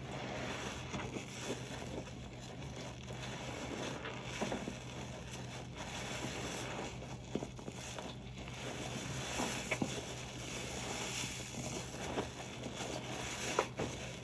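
Wet, soapy sponge being squeezed and worked, the suds crackling and squelching with small pops.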